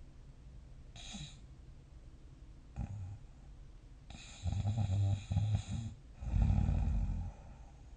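A sleeping person snoring: a short snort about three seconds in, then two long, loud snores in the second half, the first with a rapid flutter.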